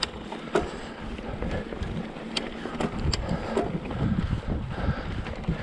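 Wind buffeting the microphone of a camera on a mountain bike rolling down a dirt trail, with tyre noise on the dirt and a few sharp clicks and rattles from the bike.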